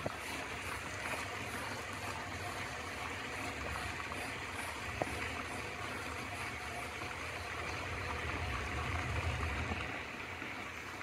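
Steady rushing splash of a lake's spray fountain, with a low rumble underneath that swells slightly near the end.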